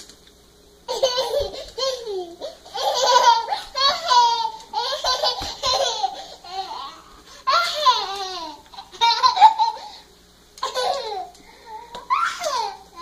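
Toddler laughing in repeated high-pitched bursts, starting about a second in.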